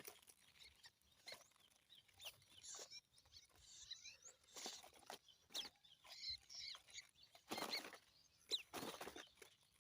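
Faint, scattered high chirps of small birds among quiet rustling and clicks.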